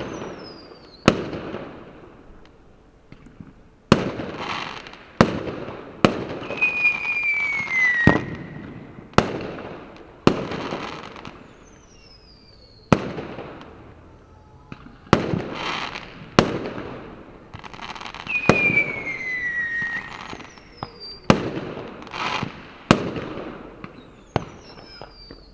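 Fireworks going off: about a dozen sharp bangs at uneven intervals, each trailing off in a rumbling echo. Twice a clear falling whistle sounds, once about six seconds in and once about eighteen seconds in.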